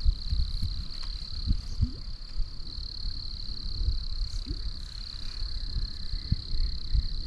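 Steady high-pitched chorus of calling insects, an unbroken trill, over low irregular rumbling and thumps on the microphone.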